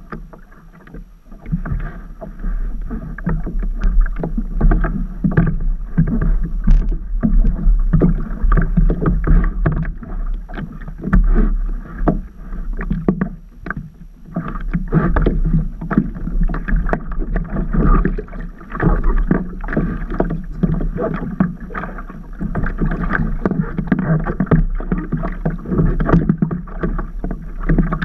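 Water splashing and slapping against a paddleboard, with many irregular knocks and thuds.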